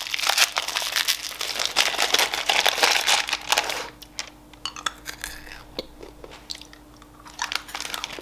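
A small plastic M&M's candy packet crinkling as it is torn open, loud and dense for the first four seconds, then quieter scattered crinkles and clicks as the opened packet is handled.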